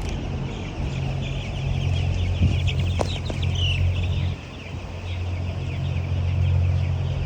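A large flock of chickens in a poultry shed, many birds calling at once in a dense, high chatter, over a steady low hum that drops away briefly about four seconds in.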